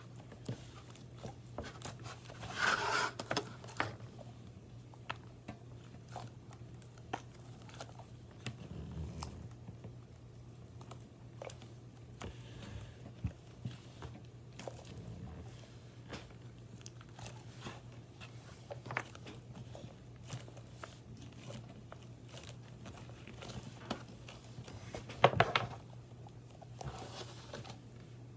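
Scattered small clicks, taps and rustles of small objects being handled, with two louder crinkling bursts, one a few seconds in and one near the end, over a steady low hum.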